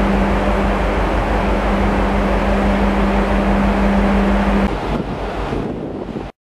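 Wind on the camcorder microphone on a cruise ship's open deck, over a steady hum of the ship's machinery. The hum stops about five seconds in, leaving a lighter wind rush that ends abruptly.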